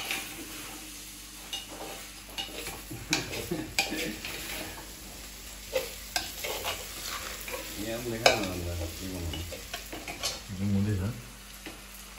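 A metal spatula stirs and scrapes food frying in an open aluminium pressure cooker on a gas stove. There is a steady sizzle under frequent clinks and knocks of the spatula against the pot.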